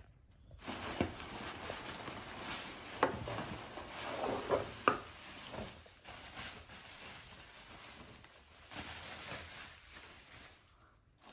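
Plastic air-cushion packaging and bubble wrap rustling and crinkling as they are handled and pulled out of a cardboard box, with a few sharper crackles about three and five seconds in. It dies away just before the end.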